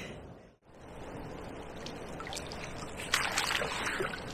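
Water trickling and sloshing around a landing net held in a river, with louder splashing from about three seconds in as the barbel moves in the submerged net.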